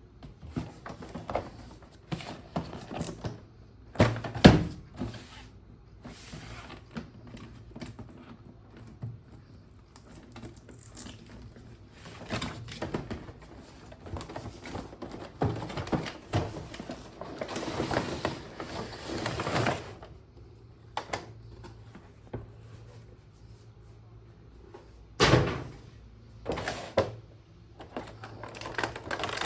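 Unboxing handling noise: irregular knocks and thunks of a box and parts being handled, with stretches of rustling packaging, the longest rustle from about 17 to 20 seconds in.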